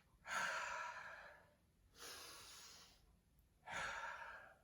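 A man breathing slowly and deeply during a cool-down stretch: three long, audible breaths of rushing air, the first and last louder than the middle one.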